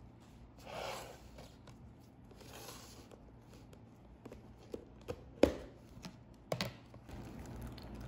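Plastic food-storage containers being handled: two soft plastic rustles, then a run of sharp plastic clicks and snaps, the loudest about five and a half seconds in, as a snap-lock lid is unclipped and pulled off.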